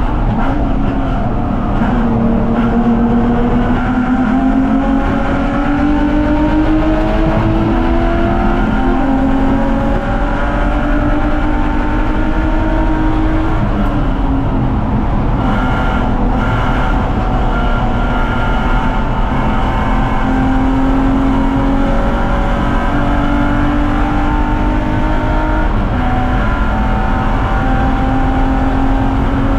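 BMW 330ci race car's inline-six engine running hard at speed, its pitch rising steadily under throttle and dropping back several times as it shifts and lifts.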